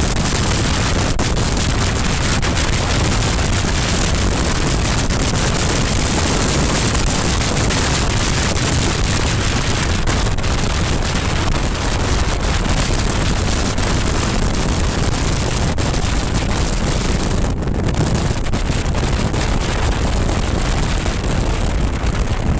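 Steady wind rushing over the microphone of a BMW R1200GS Adventure at road speed, with the low running of its boxer-twin engine and tyre noise underneath.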